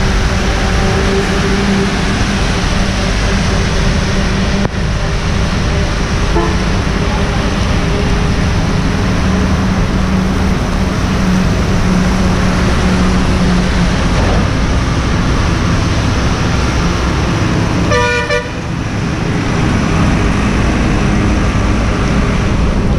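Loud, steady rush of wind and rain noise on the microphone while cycling along a rain-soaked road, with a low hum under it for the first two-thirds. About three-quarters of the way through, a vehicle horn honks once, briefly.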